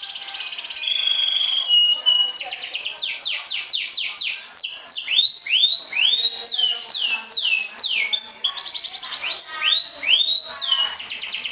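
Canary singing a fast, varied song. It mixes rapid trills of quickly repeated notes with runs of sharp whistles sweeping downward, a short level whistle early on, and a few rising notes.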